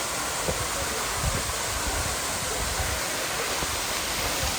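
Waterfall rushing steadily: a continuous even roar of falling water.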